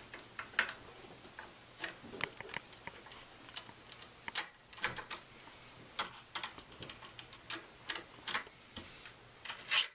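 Flathead screwdriver working out the tang screw on a Mosin-Nagant rifle: irregular small, sharp metallic clicks and taps as the screwdriver, screw and rifle are handled.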